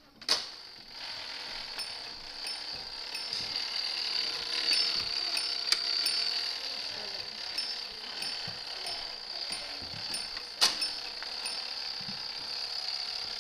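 A fire alarm system sounding steadily after being set off. It sets in just after a sharp click near the start, and a second loud click comes about ten and a half seconds in.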